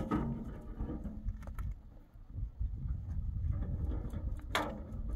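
Wind rumbling on the microphone, with scattered light ticks of footsteps on stony ground and one sharp click near the end.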